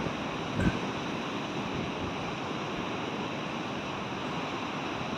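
Atlantic surf washing steadily onto a sandy beach on a rising high tide, with a brief low thump under a second in.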